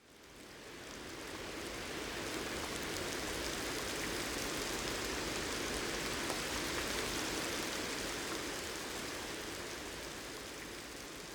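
Steady rain falling, fading in over the first couple of seconds and easing slightly toward the end.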